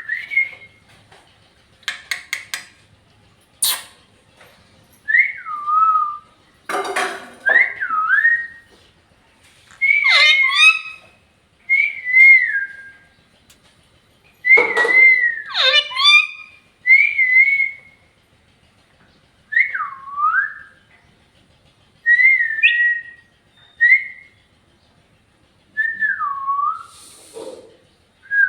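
Pet parrot whistling a short phrase again and again, a high note that dips down and swoops back up, about every two seconds. Two harsher, raspier calls come in, about seven seconds in and again halfway through, and there are a few sharp clicks early on.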